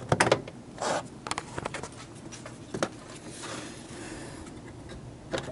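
Plastic scraping and sharp clicks as the removable lower section of a truck's fan shroud is slid into its grooves and snapped into place, with clicks near the start and a brief scrape about a second in. A softer rubbing follows a little past the middle.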